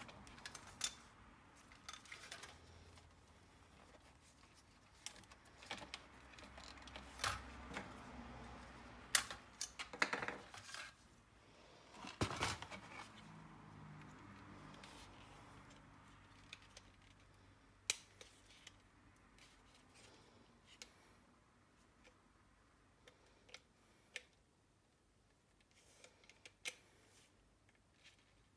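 Faint, scattered clicks, taps and scrapes of small plastic and metal laptop parts handled by hand: a removed laptop DVD drive and a plastic second-drive caddy. The knocks come thickest about nine to thirteen seconds in.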